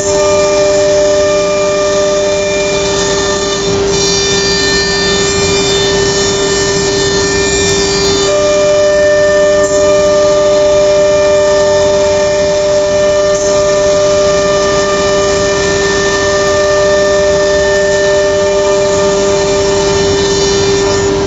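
Philicam F4 1325 CNC router running: a steady machine whine with several held tones over a hiss of dust extraction as the head works along a panel. About four seconds in a higher, shriller set of tones joins for roughly four seconds, then fades back.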